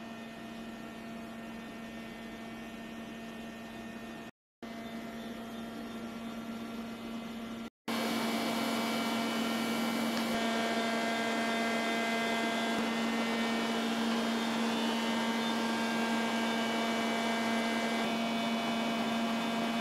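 Steady machine hum with a strong low tone and fainter higher tones over a hiss, broken by two brief silent gaps and louder after the second one, about eight seconds in.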